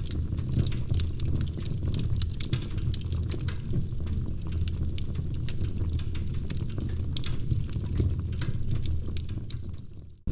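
Wood fire burning in a fireplace, crackling with many irregular sharp pops over a steady low rumble of the flames. The sound fades out briefly just before the end.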